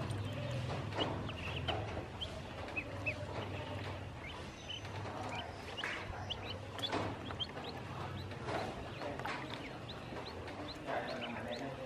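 A group of ducklings peeping, with many quick, high-pitched calls overlapping throughout, and soft water splashes and knocks now and then as they paddle in a plastic basin.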